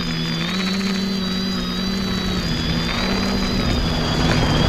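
X550 quadcopter's electric motors and propellers humming steadily with a high whine above, the pitch shifting a little with throttle. A rush of air builds in the second half and is loudest near the end.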